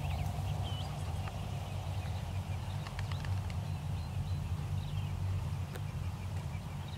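A large flock of birds in the air, giving scattered short, high calls, over a steady low wind rumble on the microphone.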